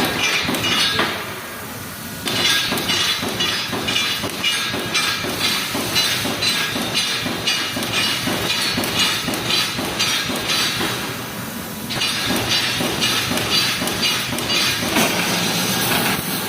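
Pneumatic wire mesh welding machine running at speed: a fast, steady clatter of welding strokes mixed with the hiss of air cylinders exhausting. The clatter eases off briefly twice, about a second in and again near eleven seconds.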